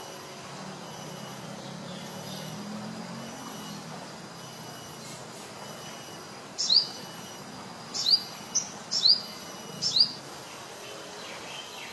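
A sogon bird calling: about five sharp, high-pitched sweeping notes over roughly three seconds, beginning past the middle. Behind them runs a steady faint insect drone and a low rumble.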